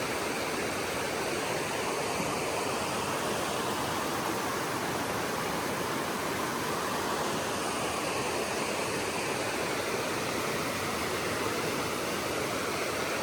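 Rushing water of a creek and falls in a rocky gorge: a steady, even rush.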